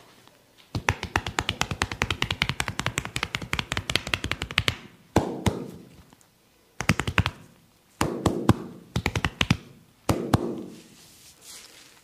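Percussive massage strokes, rapid tapping on the body at about ten strikes a second for some four seconds, then shorter bursts of taps and a few single strikes.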